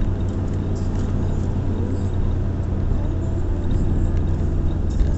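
Car engine and tyre noise heard from inside the cabin while driving on a wet road: a steady low drone, its note shifting slightly about three and a half seconds in.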